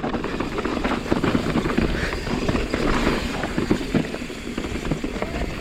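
Mountain bike riding down a rough dirt trail: tyres rolling and crunching over dirt and rocks, with a dense, irregular clatter of knocks and rattles from the bike.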